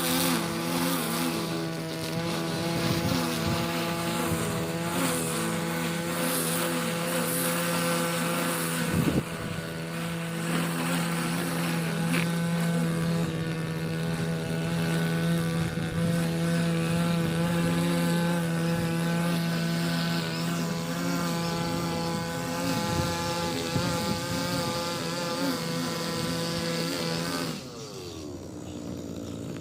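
Small petrol grass-cutting machine engine running steadily at high revs. Near the end the throttle eases off, the pitch falls and the sound drops, then it picks up again.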